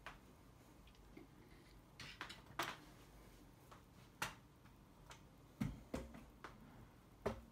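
Irregular light clicks and knocks, about nine, from a DSLR and its plastic tripod head being handled and swung round.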